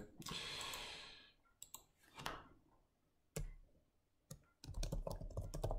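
Computer mouse clicks and keyboard keystrokes: a few separate clicks spaced out, then a quick run of keystrokes near the end. A brief soft hiss comes near the start.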